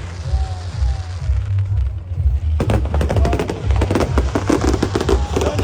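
Fireworks display: deep booming throughout, joined a little past halfway by a dense crackling of many small bursts, with music playing underneath.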